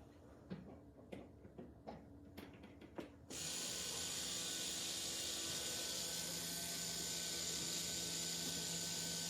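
A few light clicks, then about three seconds in a steady mechanical whir suddenly starts and holds even: the Spirit Halloween Ophelia animatronic's motors running once it is plugged in.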